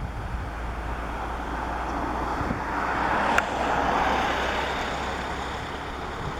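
Broad rushing engine noise that swells for a couple of seconds around the middle and then fades, over a steady low wind rumble on the microphone, with one sharp click in the middle.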